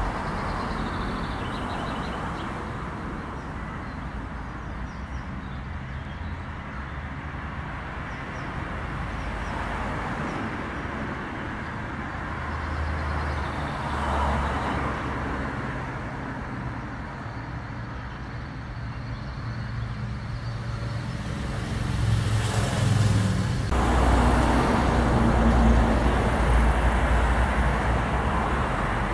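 Steady rumble of road traffic, growing louder from about 22 seconds in as a vehicle passes closer.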